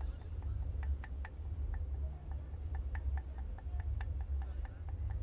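Young waru (sea hibiscus) leaves being pounded with a makeshift pestle: irregular sharp ticks, a few a second, over a low rumble.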